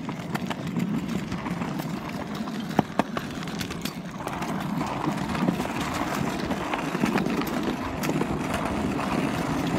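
Skateboard wheels rolling on a concrete sidewalk: a steady low rumble broken by scattered sharp clacks.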